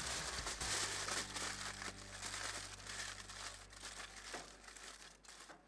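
Aluminium foil crinkling as it is folded and pressed around a whole cauliflower, growing fainter toward the end.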